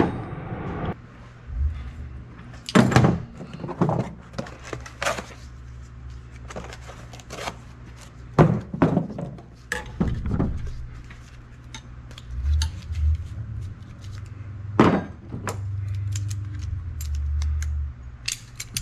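Metal hand tools being handled: a string of separate clinks and knocks as tools are picked up and set down, the loudest about three, eight and fifteen seconds in.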